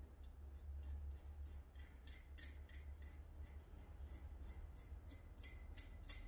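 Small bronze fittings, a barbed hose nipple and a union nut, twisted against each other by hand: a quick run of short, sharp metal-on-metal scrapes, about three a second, growing stronger after the first couple of seconds.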